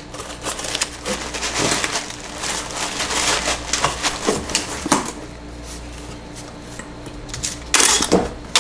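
Honeycomb kraft paper wrap crinkling and crackling as it is pressed into a cardboard box and the flaps are folded down. Near the end, packing tape rasps loudly off a handheld tape gun.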